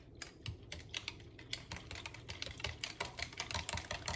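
A whisk clicking against the sides of a measuring jug as milk and instant pudding mix are whisked into a custard: quick, even clicks, sparse at first, then about five a second from about a second and a half in.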